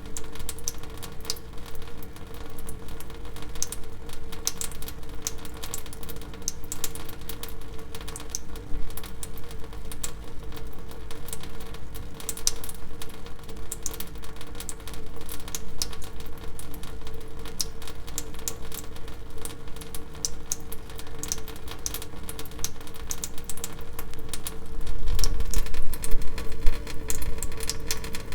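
Water dripping: many quick drips landing at an irregular pace over a steady hum. A low rumble swells about 25 seconds in.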